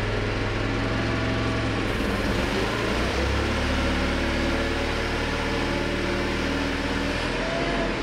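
Forklift engine running while the forks raise a snowmobile, its pitch shifting as the lift works.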